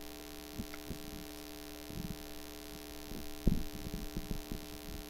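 Steady electrical mains hum with a few soft low thumps scattered through, the loudest about three and a half seconds in.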